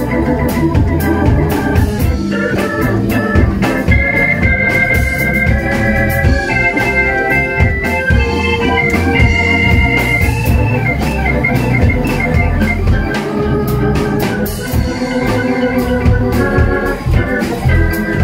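Hammond B3 organ playing sustained chords and melodic lines up front, over a live band's bass and drums with regular cymbal strikes.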